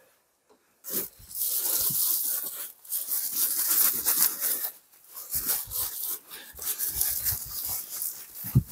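Woven polypropylene soil bags of fermenting rice-bran bokashi rustling and scraping as they are lifted, turned and shifted in a plastic tub, with a few soft thuds in the second half. Almost silent for the first second.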